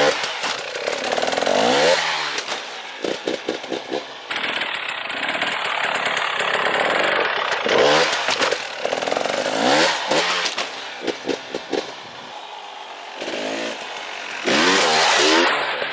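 KTM 300 XC-W TPI two-stroke single-cylinder dirt bike engine revving up and down, with several runs of quick throttle blips.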